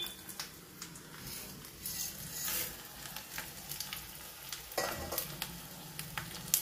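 Tempering spices frying in hot oil in a small kadai: mustard seeds, urad dal, chana dal and cumin sizzling with garlic and dried red chillies, a steady crackle scattered with sharp pops. A single dull knock a little under five seconds in.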